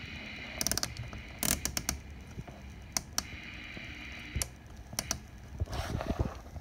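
Rotary channel selector of a Uniden PRO520XL CB radio clicking through its detents as it is turned: a quick run of clicks about half a second in, then scattered single clicks. A brief rustle near the end as the camera is moved.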